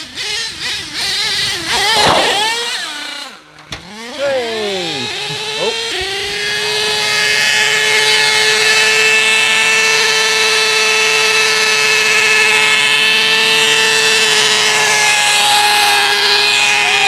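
Nitro-engined Savage RC monster truck's engine revving up and down in quick bursts, dropping off briefly about three and a half seconds in, then from about six seconds in holding a steady high whine at constant high revs: a runaway, the truck running on at steady throttle with nobody driving it.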